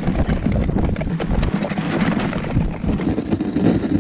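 Dog sled running over a packed snow trail behind a running team: the runners scrape and clatter unevenly, with wind buffeting the microphone.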